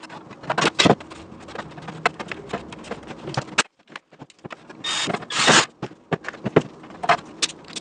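Workshop bench-work sounds: irregular sharp clicks and knocks of tools and sheet metal being handled on a bench, with two short hissing bursts about five seconds in.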